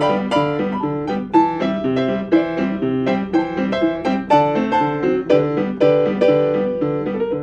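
Solo piano playing a tune, with a steady beat of low bass notes under chords and a melody.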